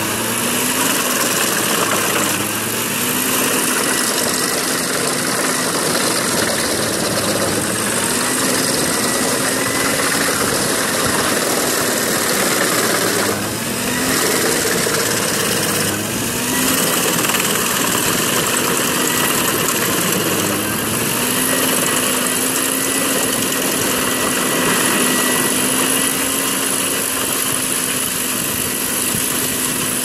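Wood chipper running under load as it chews through logs: a dense, steady grinding and blowing noise over its engine drone. The engine note sags and climbs back several times as logs are pulled into the feed rollers.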